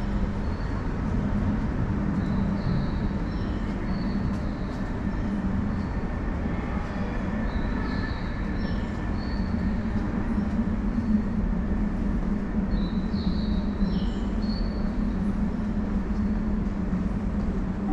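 Underground subway station platform ambience: a steady low rumble and hum that holds at one level throughout, with short high chirps now and then.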